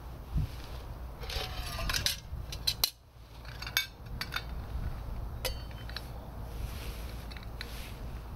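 Metal camp cookware being handled: a small pot and cup clink and knock together in a string of sharp taps, some ringing briefly, with a busier patch of clinking and scraping about a second in.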